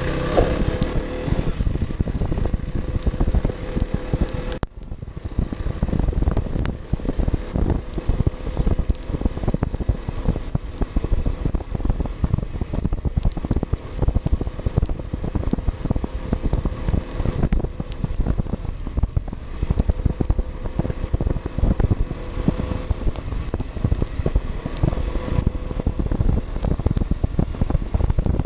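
Heavy wind buffeting on the microphone of a KTM Duke motorcycle ridden at speed along a wet, flooded road, with the bike's engine running underneath.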